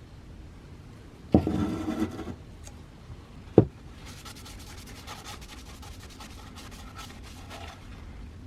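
Hand rubbing and scraping: a loud scraping burst about a second in, a single sharp knock, then a longer stretch of light scratchy rubbing with fine clicks.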